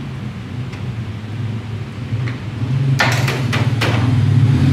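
A few sharp metallic clinks and knocks of hand tools on the motorcycle, starting about three seconds in, over a steady low mechanical hum that grows louder toward the end.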